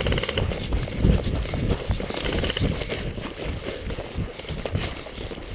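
A person sprinting on foot: irregular heavy footfalls with gear jostling and clothing rustling close to the microphone. A brief rapid string of clicks comes right at the start.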